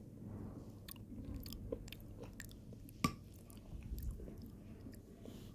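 Close-up chewing of soft halim wheat porridge: wet mouth sounds with many small clicks. About three seconds in, one sharp clink of a metal spoon against the glass bowl.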